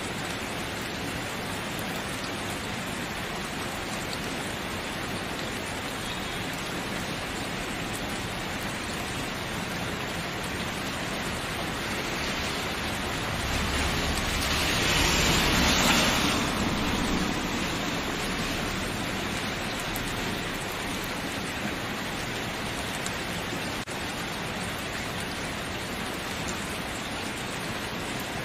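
Steady rain falling, an even hiss. Near the middle it swells louder for about three seconds, with a deeper rumble underneath, then settles back.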